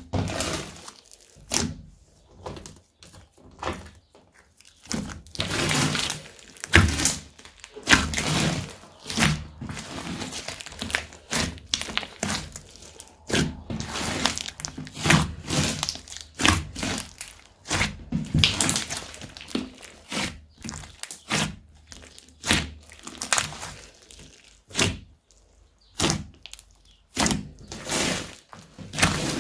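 Slime being mixed and kneaded by hand, giving a dense, irregular string of sticky clicks and pops.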